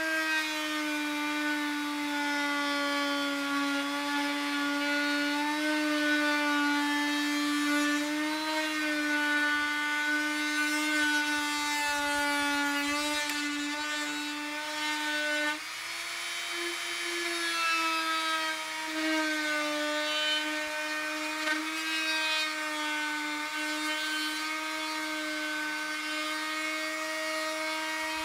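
Corded oscillating multi-tool cutting along a taped line in a 2018 Toyota Tacoma's front bumper cover, giving a steady buzzing whine. Its pitch rises briefly just past halfway.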